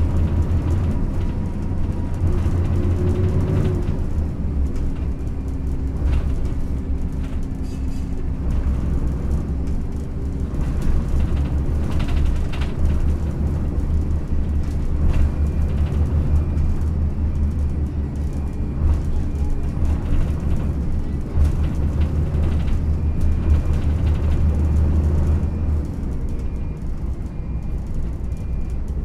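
Cabin sound of a Yutong ZK6128HG low-floor city bus under way: its engine runs with a steady low drone, and its pitch shifts about four seconds in as the ZF automated manual gearbox changes gear. Scattered knocks and rattles come from the body over uneven road, and in the second half a faint high beep repeats.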